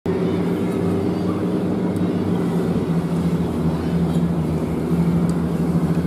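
Engine of a rigid inflatable boat running at a steady cruising speed: an even, unbroken drone over water noise.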